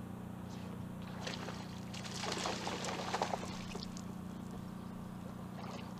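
Water splashing in irregular bursts as a hooked bass thrashes near the boat, loudest about two to three seconds in, over a steady low hum.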